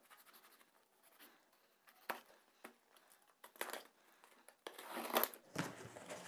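Cardboard shipping box being opened by hand: packing tape is picked at and torn in a few short scratchy rips, then the cardboard flaps rustle and scrape as they are pulled open near the end.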